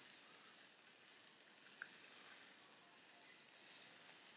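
Faint, steady hiss of corn tortillas sizzling in oil on a flat-top griddle, with one light click about two seconds in as metal tongs move them.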